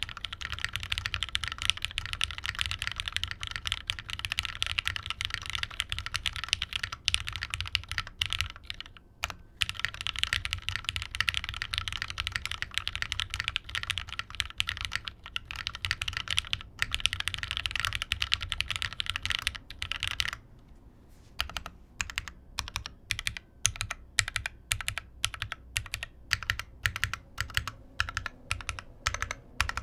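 Plateless top-mount mechanical keyboard with lubed, broken-in Cherry MX Black linear switches and GMK keycaps, being typed on fast and continuously. There is a short break about nine seconds in. After about twenty seconds the typing turns to slower, separate keystrokes at about two a second.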